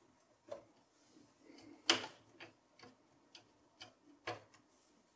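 Screwdriver turning out a standoff screw in a PC's steel chassis: a run of about seven light clicks, irregularly spaced, the loudest about two seconds in.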